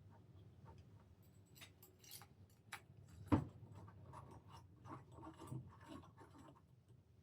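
Small clicks, taps and rubbing of hand tools and engine parts being handled during reassembly, with one sharp click about a third of the way in.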